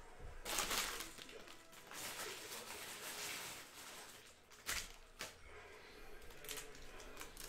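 Cellophane-wrapped trading card packs (Panini Mosaic cello packs) crinkling and rustling in bursts as they are handled and sorted by hand, with two light taps about halfway through.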